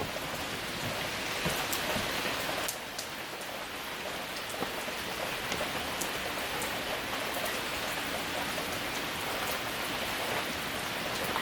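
Steady rain falling, an even hiss of rain with many single drops ticking through it.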